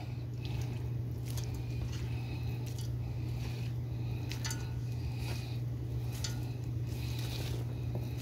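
A steady low hum, with a few faint soft taps and rustles scattered through as chopped tomatoes and fresh coriander are dropped onto raw mince in a steel mixing bowl.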